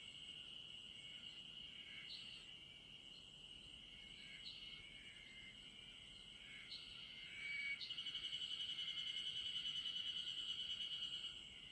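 Insects singing: a steady high-pitched trill from several insects, with short chirps every couple of seconds. About eight seconds in, a louder, rapidly pulsing song starts close by and stops about a second before the end.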